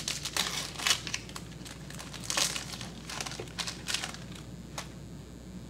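Foil wrapper of a trading-card pack being torn open and crinkled as the cards are pulled out: a run of irregular crackles and rustles.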